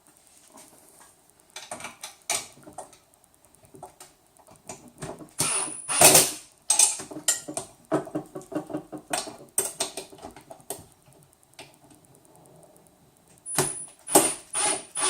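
Hand-assembly handling noise: clicks, knocks and rattles of frame parts, screws and nuts being fitted and tightened, with one louder knock about six seconds in and a run of quick taps a little after.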